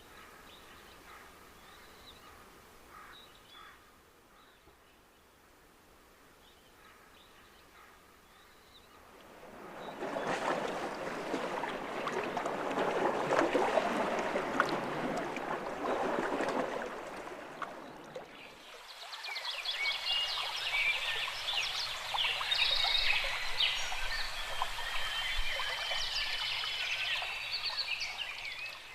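Nature soundscape in three parts: faint scattered calls at first, then a loud even rush like running water from about ten seconds in, then a dense chorus of high chirping calls from about two-thirds of the way through.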